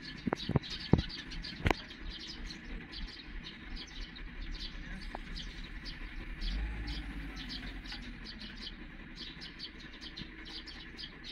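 Small birds chirping rapidly and continuously, several short high notes a second. Four sharp knocks in the first two seconds are the loudest sounds.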